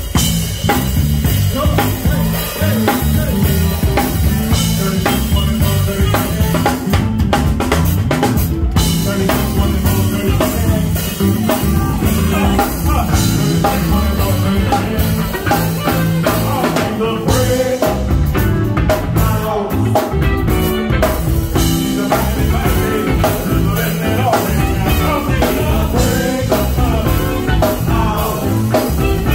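Live band playing an upbeat groove: drum kit keeping a steady beat under electric bass and keyboard, with a woman singing into a microphone.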